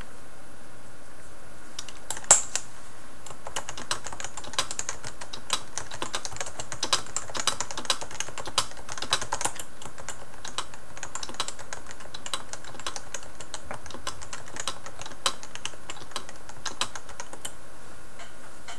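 Typing at full speed on a Topre Realforce 103UB keyboard with 55 g Topre electrostatic capacitive switches: a rapid run of soft, non-clicky keystrokes with the keys bottoming out. It starts about two seconds in with one sharp, louder keystroke and goes on until near the end.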